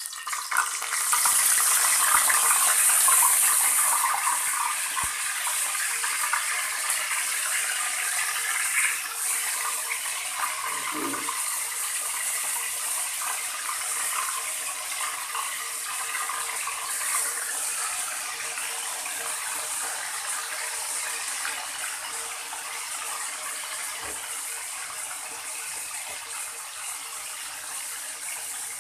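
Pork steak frying in hot cooking oil in a wok: a loud sizzle that starts abruptly as the meat goes into the oil, strongest for the first few seconds, then settling into a steady sizzle that slowly softens.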